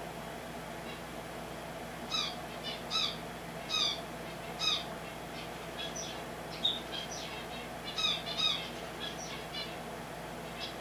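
Finches chirping: starting about two seconds in, short calls come roughly once a second, then a busier run of quicker, varied chirps follows. A steady low hum runs underneath.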